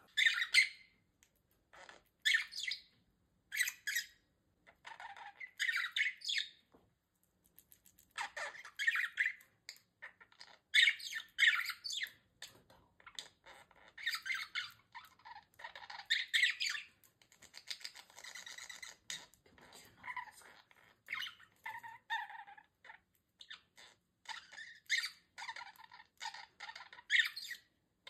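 Budgerigars chattering: short, scratchy chirps and squawks in quick runs, broken by brief pauses.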